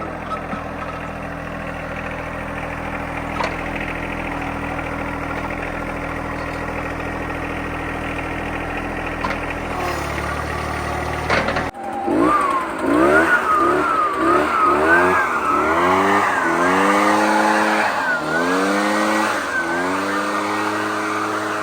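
Vermeer SC30TX stump grinder's engine running steadily. About twelve seconds in, after a sudden break, its pitch rises and falls over and over as the machine works the stump.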